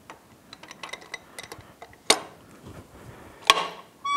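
Metal parts clicking and clinking as the output shaft is worked into a Yamaha F225 outboard lower unit gearcase, with two sharper metal clanks about two and three and a half seconds in and a short ringing tone at the very end.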